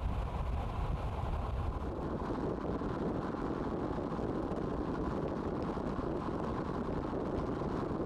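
Steady road noise and rumble of a car driving along, heard from the moving vehicle.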